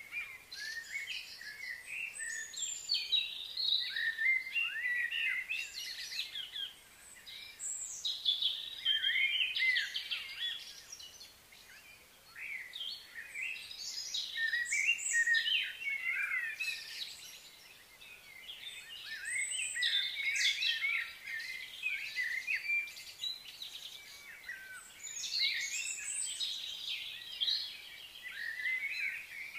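Outdoor birds chirping and calling: many short, quick notes, some rising and some falling, coming in waves with brief lulls in between.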